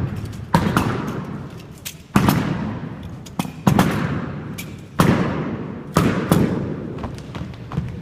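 A series of about seven heavy, sharp thuds at irregular intervals, each followed by a long echo as in a large hall.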